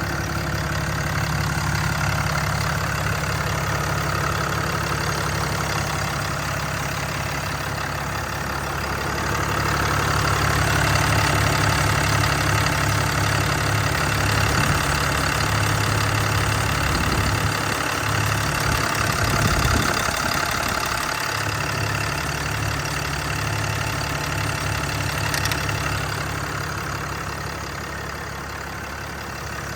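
Cummins 6.7-litre inline-six turbo-diesel running steadily, its sound swelling somewhat through the middle and easing off near the end.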